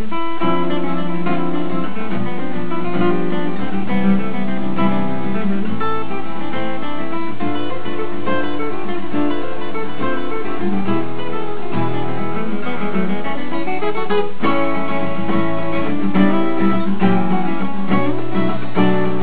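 Two overdubbed steel-string acoustic guitar parts played on a Crafter TV200CEQ acoustic-electric guitar: a strummed and picked rhythm part under a fingerpicked melody, playing continuously.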